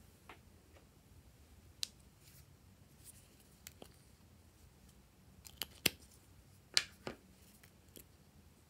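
Caps being pulled off and fiddled with on small plastic character-shaped glitter bottles: scattered sharp plastic clicks, about a dozen, the loudest two about two-thirds of the way through.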